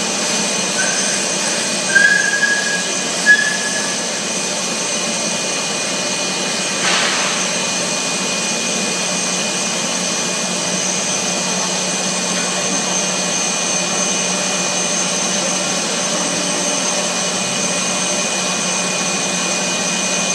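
Bubble film machine running: a steady mechanical hum of motors and rollers with a constant high whine. Three short whistle-like tones sound in the first few seconds, and a brief hiss about seven seconds in.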